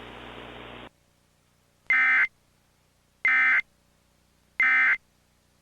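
Three short bursts of Emergency Alert System SAME data tones, the harsh buzzing end-of-message code sent three times about a second apart, marking the end of the alert. Before them a faint hiss cuts off about a second in.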